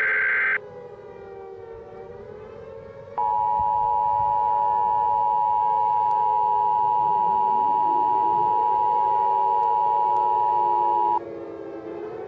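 An Emergency Alert System data burst (the screeching digital header) cuts off about half a second in. About three seconds in, the steady two-tone EAS attention signal starts and holds for about eight seconds. Under it all, a civil defense siren wails, rising and falling, and winds up again from low pitch midway through.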